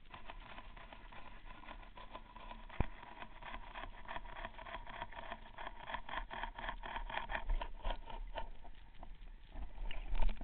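Sharp clicks and taps picked up underwater by a camera in its housing, coming four to five a second for several seconds, with one heavier knock about three seconds in.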